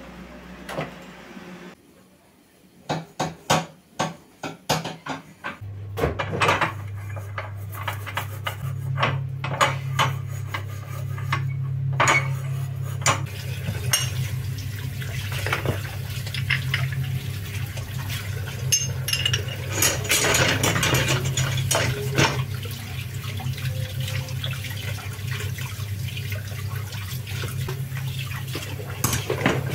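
Black metal gas-stove grates and burner parts clattering in a kitchen sink: a quick run of about eight knocks, then the tap running steadily while the parts are scrubbed and rinsed, with frequent clinks and scrapes of metal against the sink.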